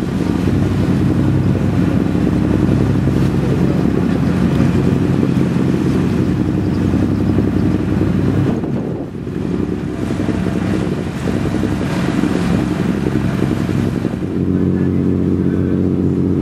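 Engine of the boat carrying the camera running steadily, with wind and water hiss over it; its tone shifts about fourteen seconds in.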